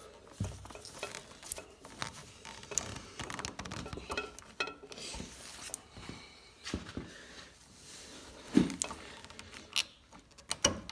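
Metal hydraulic quick couplers and hoses being handled and pushed onto the tractor's outlets: scattered small metal clicks and knocks, with a few louder clacks spaced seconds apart.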